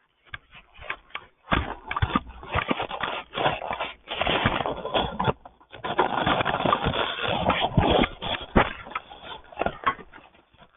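Scratchy rubbing and scraping noises with many small clicks, coming in irregular stretches that are dense in the middle and sparse at the start and near the end.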